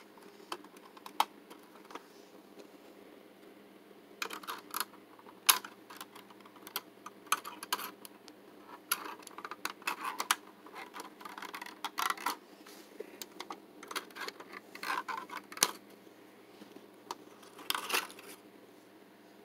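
Hands unpacking a die-cast model car with scissors: scattered clicks, snips and crinkling of plastic and tape, in short clusters with pauses between.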